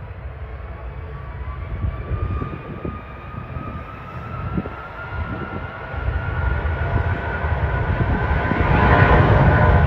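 Aircraft engines whining over a low rumble, the whine slowly rising in pitch and the sound growing louder toward the end as the plane comes closer.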